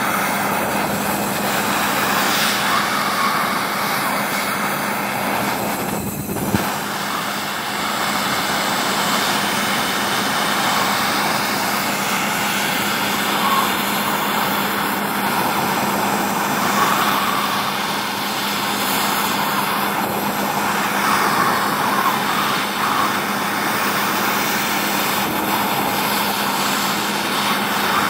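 Gas torch flame burning steadily with an even rushing noise as it is played over lead in a steel pot, with a steady low hum underneath. The noise dips briefly with a single click about six seconds in.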